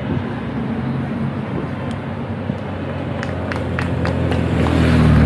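Team cars of a race convoy driving past, a steady hum of engines and tyres on the road, then a motorcycle growing louder as it comes up and passes close near the end. Scattered sharp clicks sound over it.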